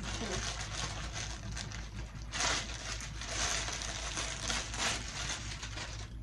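Packaging being handled and crinkled while the parts of a ring light kit are unpacked, with louder rustles about two and a half, three and a half and five seconds in.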